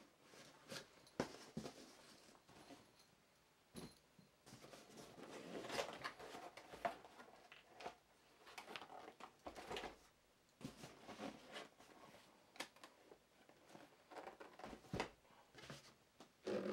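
Packaging being handled: a fabric carry bag, long cardboard boxes and a cardboard shipping box rustling, scraping and knocking as they are lifted out and moved, in irregular bursts, with a louder bump near the end.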